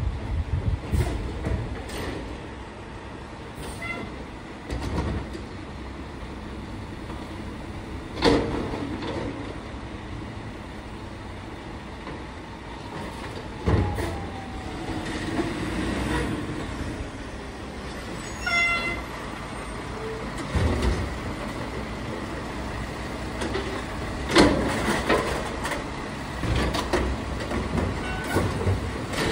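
Mack garbage truck's diesel engine running as the truck drives up and pulls to a stop, with several sudden loud sounds along the way and a brief squeal about two-thirds of the way through.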